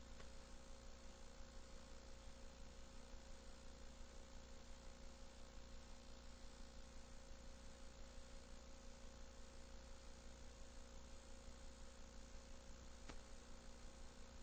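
Near silence: a steady electrical hum and faint hiss from the old videotape's sound track, with one faint click near the end. No game sound is heard.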